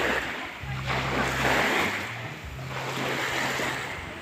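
Sea surf washing onto the beach, a rushing hiss that swells and fades every second or so.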